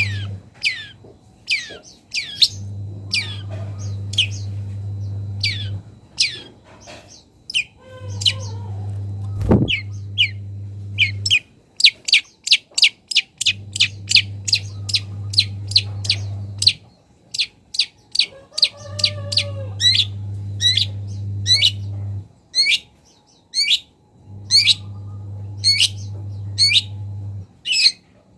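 Long-tailed shrike (cendet) singing hard: a fast, unbroken string of short sweeping chirps and mimicked calls. The song grows denser about halfway through. A low hum switches on and off every five seconds or so underneath it.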